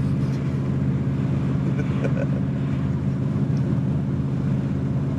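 Steady low drone of a car's engine and road noise heard from inside the cabin while driving at an even speed.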